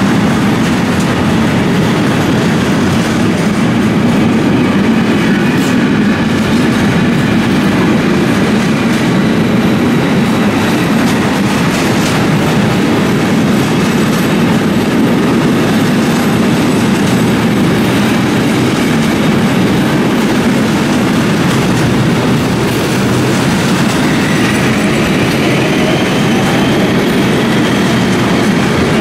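A train passing at close range, with a loud, steady rumble of wheels on rail that goes on without a break. A faint rising whine is heard near the end.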